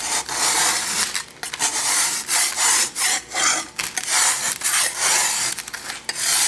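Brass scraper rasping rust off a steel electrolysis anode plate in repeated strokes, about two a second: the rust deposited on the anode during electrolytic rust removal.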